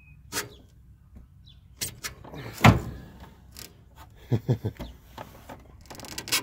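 Metal clunks and knocks from a Ford E-450's rusty steel front sway bar being worked loose by hand during removal. The loudest is a heavy thump about two and a half seconds in, followed by a quick run of four knocks a little later.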